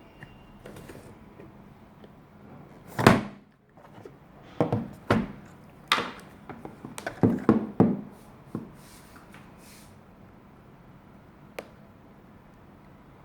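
Handling noise from a keyboard being moved about on a desk: about a dozen knocks and thuds, the loudest about three seconds in, most of the rest bunched in the middle, then one light click near the end.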